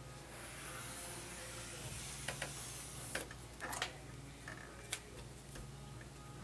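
Marker drawn along corrugated plastic board, a faint scratchy hiss lasting about three seconds, followed by a few light clicks and knocks of the wooden template and board being handled.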